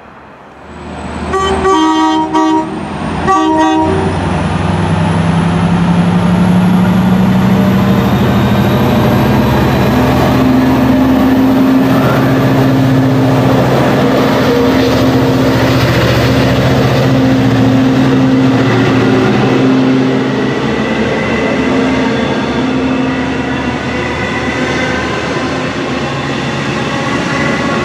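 Long Island Rail Road train sounding its horn twice, a long blast then a short one, then passing close by. Its motors drone steadily under a thin high whine that slowly rises in pitch as it goes by.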